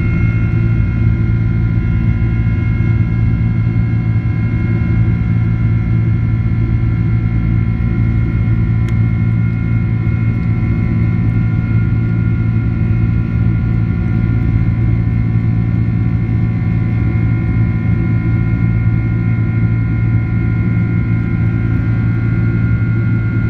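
Boeing 767-300's twin turbofan engines at climb power after takeoff, heard inside the cabin: a steady low drone with a few steady high whining tones over it.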